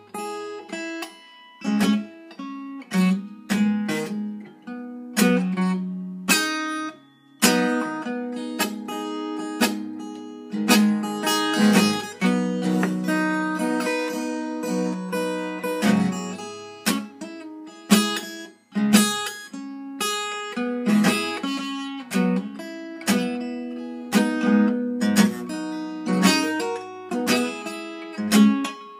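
Acoustic guitar strummed in ringing chords, one sharp stroke about every second, played solo without singing.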